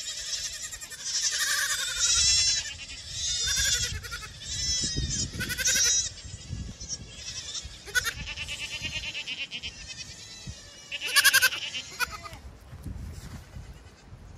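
Goat kids bleating over and over, many short high wavering calls from several kids overlapping, the loudest a little past the middle.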